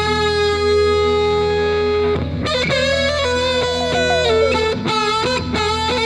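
Electric guitar instrumental: a lead guitar holds long, sustained notes with bends, then breaks into a quick run of notes about two seconds in, with notes sliding down in pitch a little later, over a steady low accompaniment.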